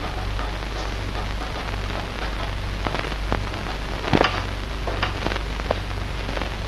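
Steady rain with scattered drops ticking and tapping, one louder tap about four seconds in, over a constant low hum.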